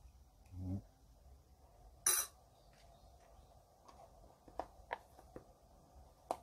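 A metal spoon against a stainless steel stockpot: a dull knock under a second in, one bright clink about two seconds in, then a few faint light ticks.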